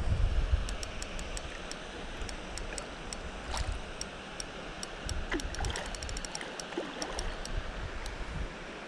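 Spinning reel's drag clicking in irregular runs of ticks, quickening around six seconds in, as a hooked carp pulls line off the spool. Water splashing and lapping, with wind buffeting the microphone at the start.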